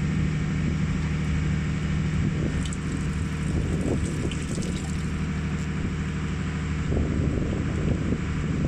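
Steady low engine drone that holds an even pitch, with a constant hiss over it.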